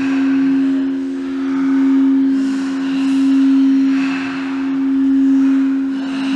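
Singing bowl sounding one long steady tone, its loudness swelling and fading in slow waves about every one and a half seconds.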